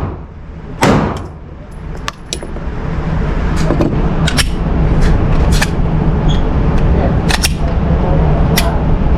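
Pistol shots at a shooting range: a sharp report about a second in, then more cracks spread irregularly through the following seconds, some fainter, over a steady low rumble.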